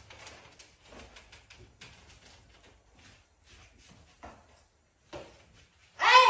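Faint, scattered scraping and small knocks on a hard floor from sweeping and a cat exercise wheel moving. About six seconds in, a short, loud, high cry that falls in pitch.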